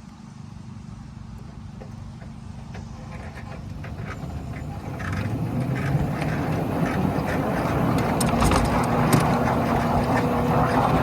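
Small-gauge ride-on train running on a ground-level track, its low hum growing steadily louder as it gets under way, with sharp clicks from the wheels and track starting a few seconds in.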